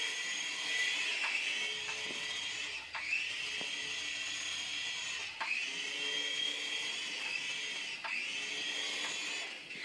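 Toy radio-controlled helicopter whining in flight, its small electric motor and rotors giving a steady high-pitched whine that dips briefly and recovers three times.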